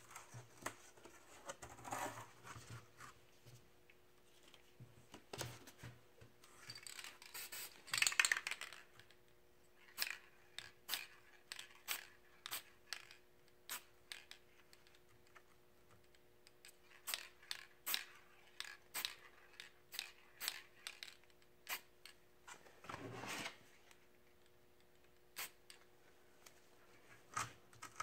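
Aerosol spray-paint can hissing in a few short bursts, each under a second or so, with many sharp clicks and light scratching and rubbing against the painted board between them.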